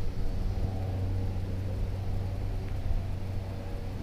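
A small motor humming steadily at a constant pitch, over a low, unsteady rumble.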